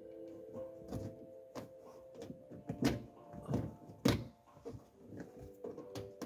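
Irregular plastic clicks and knocks as a trim-removal tool prises and presses at a van's interior plastic trim and headliner edge, the loudest about four seconds in. Soft background music with held notes plays underneath.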